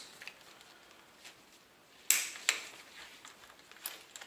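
Metal sling hardware clicking as a sling is clipped onto an AR-15's rear sling attachment plate: two sharp clicks about half a second apart around two seconds in, with a few lighter ticks and rattles around them.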